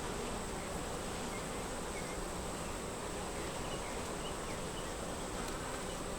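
Honey bees buzzing steadily in a dense swarm around an opened hive.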